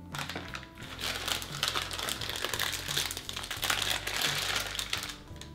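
Disposable plastic piping bag crinkling and rustling as it is handled, stopping about five seconds in.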